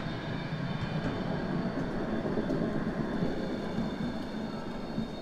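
Articulated electric tram passing close by, its wheels rolling on the rails with a steady rumble and a faint high whine above it.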